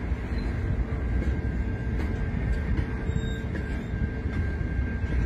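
Intermodal freight train of container wagons rolling past: a steady low rumble of wagon wheels on the rails, with a faint steady high-pitched tone over it.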